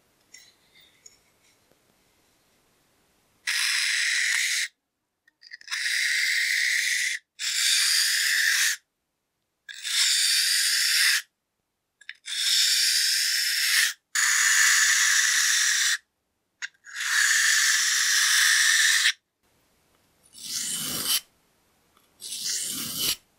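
A steel razor blade drawn back and forth across a water-soaked whetstone: about seven long scraping strokes of a second or two each, then two shorter strokes near the end.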